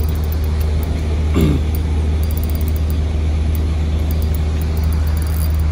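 Steady low rumble of background noise, with a short falling sound about a second and a half in.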